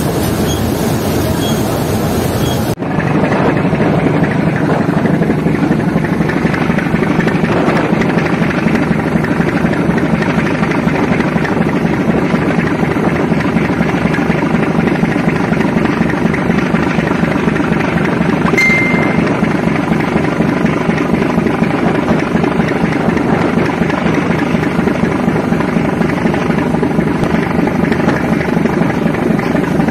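A river launch's engines running hard under way, with its propellers churning up a frothing wake: a steady heavy drone mixed with a rush of water. The sound steps up louder and fuller about three seconds in, where the recording cuts, and a brief high beep sounds a little past the middle.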